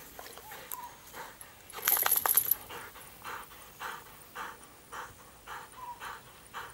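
A dog panting in soft, even breaths about two a second, with a short loud rattling burst about two seconds in.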